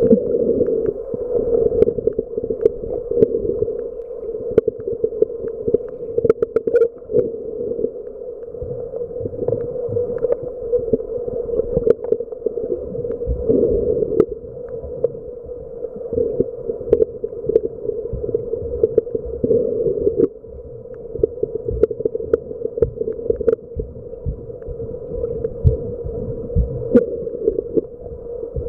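Muffled underwater sound picked up by a camera held below the surface: a steady, dull water rumble, with scattered faint clicks throughout.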